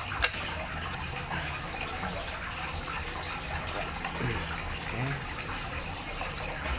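Steady running water, with one sharp click about a quarter second in.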